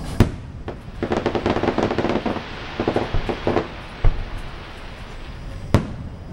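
Aerial fireworks display: a sharp bang just after the start, then a dense run of rapid crackling pops for about three seconds, then two more single bangs, one about four seconds in and one near the end.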